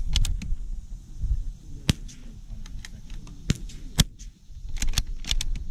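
Bergara B-14R .22 LR bolt-action rifle being fired and worked: sharp cracks, the two loudest about two seconds apart, with quicker clicks of the bolt being cycled between shots.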